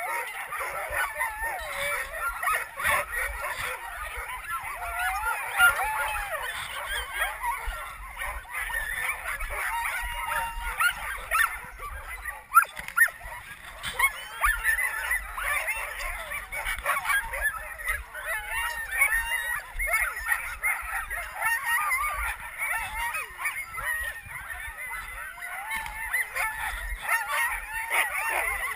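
A chorus of many sled dogs yelping, barking and howling at once, overlapping without a break. This is the excited clamour of a team being hooked up in harness before a run.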